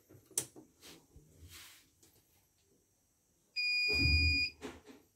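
CNY portable computerised embroidery machine powering up: a click near the start, then, after a pause, a single steady electronic beep lasting about a second, with a low rumble under it as the machine starts.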